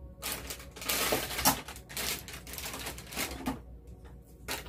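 Irregular rustling and clattering of objects being handled close to the microphone, with a sharp click about a second and a half in.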